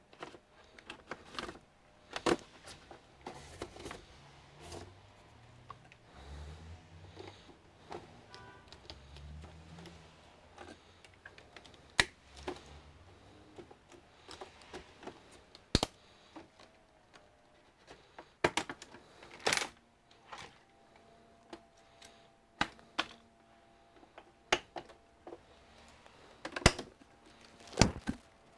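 Irregular clicks and knocks of plastic parts of an HP all-in-one PC's housing being handled and pressed together, a few of them sharp and much louder, as a panel corner refuses to snap into place.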